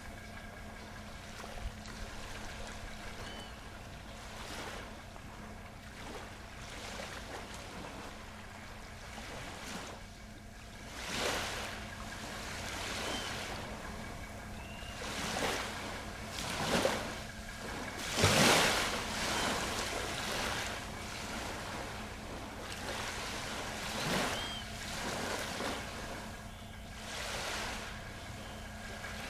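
Ocean waves washing in and breaking, a surge every few seconds with the loudest about eighteen seconds in, over a steady low hum.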